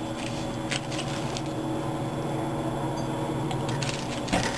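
Small metal nuts and bolts clicking and a plastic parts bag rustling as they are picked out by hand: scattered light clicks, the loudest near the end. Underneath, a steady low hum.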